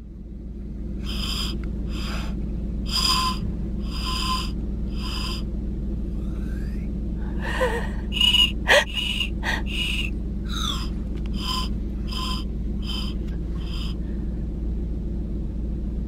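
A child blowing a Melody Pop whistle lollipop: about fifteen short, breathy toots in two runs, with a pause in the middle. Under it is the steady low hum of a car's engine, heard from inside the cabin.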